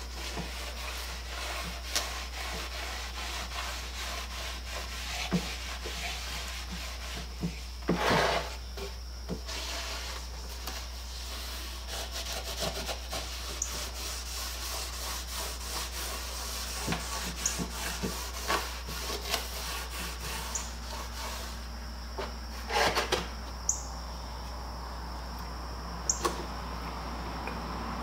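A paintbrush rubbing boiled linseed oil thinned with mineral spirits into the dry wood of a carpenter's tool-box till, a steady scratchy swishing. Small knocks and taps of wood and jar come now and then, with louder clusters about eight seconds in and again near the middle of the second half.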